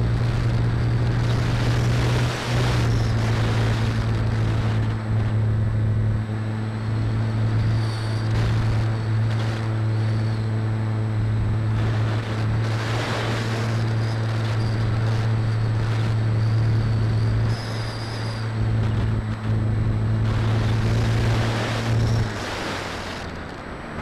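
Electric motor and pusher propeller of a scratch-built depron RC motor glider, heard from a camera on board. It runs at a steady pitch under rushing wind noise, then the motor drops away about 22 seconds in and leaves only the wind.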